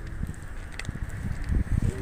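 Wind buffeting the microphone, as irregular low rumbling gusts that are strongest near the end.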